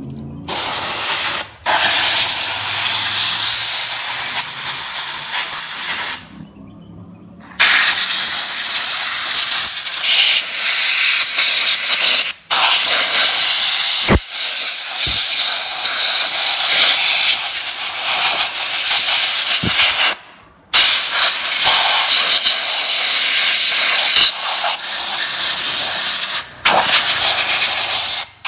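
Compressed-air blow gun hissing in long bursts of several seconds, with short breaks and a longer pause about six seconds in, blowing out a freshly wet-sandblasted scooter crankcase.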